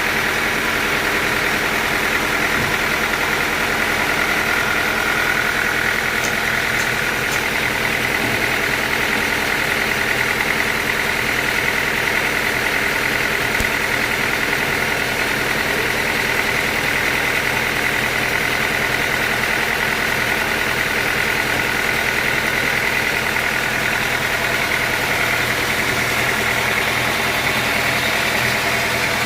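Sawmill machinery running steadily: an even engine hum with a high, constant whine over it.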